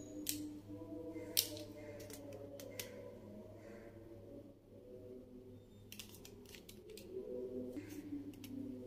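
Sharp plastic clicks and taps from hands handling and twisting up plastic lip balm tubes, scattered through with a cluster about six seconds in, over a steady low hum.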